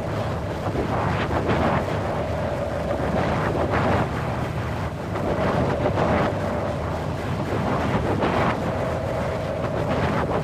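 Wind blowing hard in gusts: a dense, steady rush that swells and eases every second or two.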